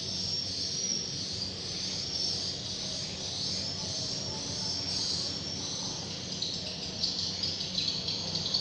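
Steady high-pitched chirring ambience over a low hum, with a few sharper ticks in the last second or so.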